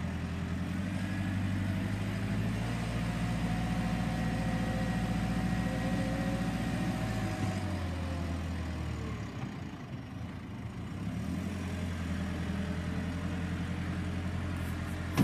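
JCB 531-70 telehandler's diesel engine running under load as the machine works a bucket, with a faint whine over the engine note. The engine eases off about nine seconds in and picks up again a couple of seconds later.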